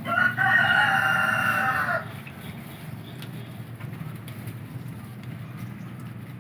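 A rooster crows once, a single call of about two seconds at the start, over a steady low background hum.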